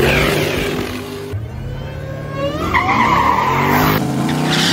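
Drag-racing trucks' engines revving hard, with tyre squeal, in short clips cut together; about a third of the way in one engine's pitch climbs as it accelerates.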